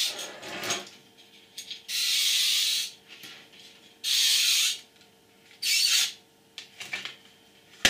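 Rubbing scrapes as a long, sleeved LED driver power-supply module is slid out of the LED striplight tube's housing, in three separate pulls. A sharp click comes right at the end.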